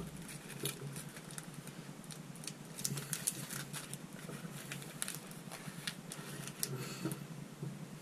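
Faint scattered clicks and light rustling of hands fetching and handling small fly-tying materials, the lead eyes to be tied onto the hook, over a steady low hum.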